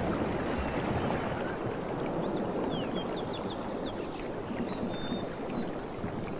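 Steady rushing outdoor ambience of wind and water on a seashore, with a few short high chirps around the middle.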